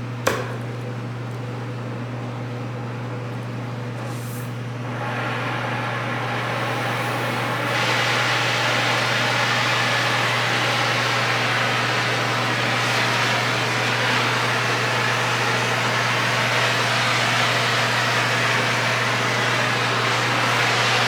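Gas torch flame hissing steadily as it heats a seized nut on a bumper bolt to free it. A sharp click comes about a quarter second in, and the hiss grows louder and brighter about five seconds in and again about eight seconds in.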